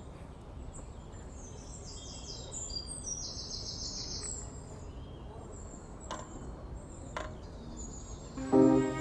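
Several songbirds chirping and trilling over a steady low outdoor noise, with two sharp clicks about six and seven seconds in. Near the end, cello and piano music comes in loudly.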